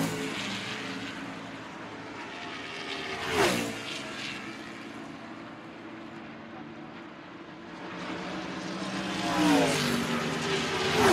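NASCAR stock cars' V8 engines running at full speed around the track: one car passes close about a third of the way in, its pitch dropping sharply as it goes by, the field drones more distantly through the middle, and more cars build up and pass near the end.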